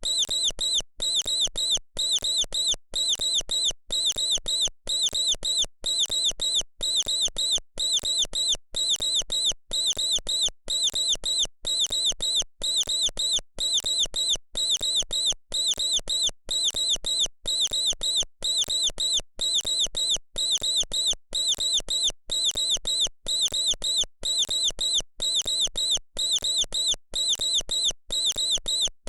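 Mouse squeaking: short groups of high-pitched squeaks, a little under two groups a second, repeating evenly and without a break like a loop.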